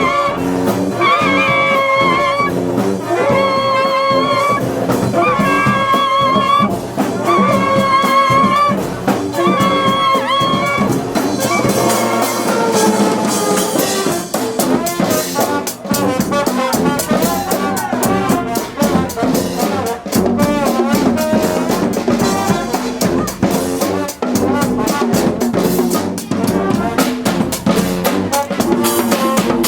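Live brass marching band with trumpets and trombones. For about the first eleven seconds the horns play a run of held chords, one roughly every one and a half seconds with short gaps between. Then the full band and drum kit go into a busier groove.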